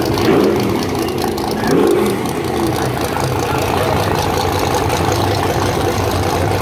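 Ford Mustang engine idling at the drag strip start line, with two short throttle blips in the first two seconds.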